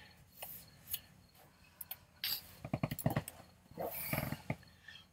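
Faint handling noises as a paper cigar band is worked off the cigar: scattered light clicks and short rustles, busiest about three seconds in.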